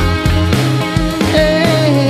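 Male singer singing a Kachin song into a microphone over backing music with bass and a steady beat; in the second half he holds a long note with vibrato.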